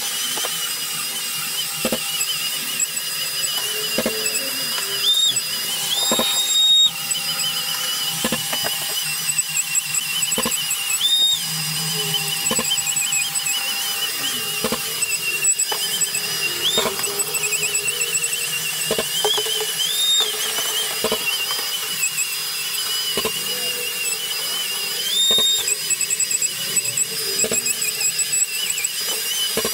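Long-reach drywall sander with a dust-extraction hose running, a steady high whine as its pad sands jointed plasterboard. The whine briefly jumps higher about six times, with scattered light knocks.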